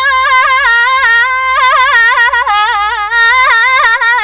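A girl's voice singing unaccompanied in rural Iraqi folk style, a melismatic run of quick wavering turns and trills around a high note.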